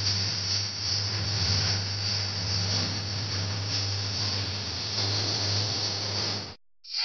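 Steady hiss with a low hum underneath and no clear tune or voices. It cuts out abruptly near the end and comes back just after.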